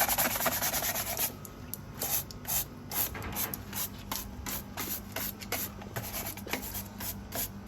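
Scrubbing on the shell of a Sumatran giant tortoise (Manouria emys) as it is cleaned: a dense run of rubbing for about the first second, then short separate scrubbing strokes, about two to three a second.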